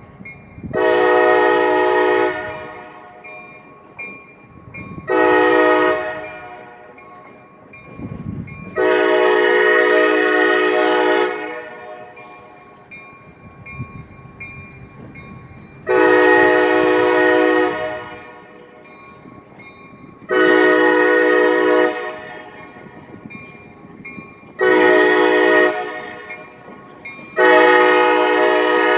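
CSX locomotive 2686's multi-chime air horn sounding seven blasts, some about a second long and others two to three seconds, each a steady chord of several notes, with pauses of a couple of seconds between them. A low rumble carries on between the blasts.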